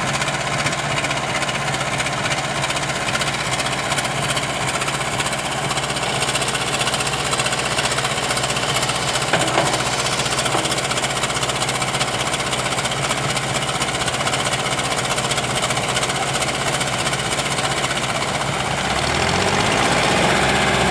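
JCB backhoe loader's diesel engine running steadily while the backhoe digs gravel, with one sharp knock about nine seconds in. Near the end the engine sound grows louder, its pitch sweeping up and then down.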